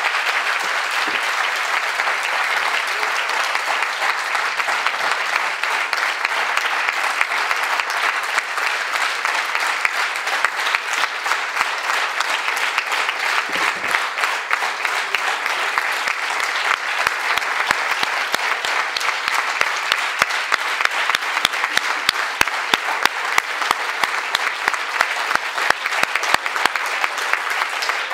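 An audience applauding. About halfway through, the clapping falls into a steady rhythmic beat in unison.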